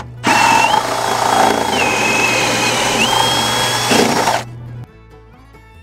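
Milwaukee Fuel cordless drill boring a hole through a wooden beam. Its motor whine sags in pitch as the bit loads up in the wood and climbs again as it frees. It pauses for a moment at the start and cuts off after about four seconds. Quiet fiddle music then comes in near the end.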